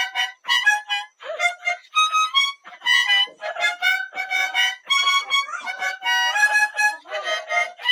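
Harmonica (mouth organ) played in short choppy chordal phrases, the notes broken by brief gaps.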